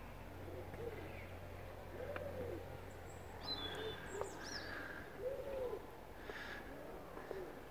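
A dove cooing over and over: a long, arched coo about every three seconds, with shorter coos between. A small bird chirps briefly near the middle.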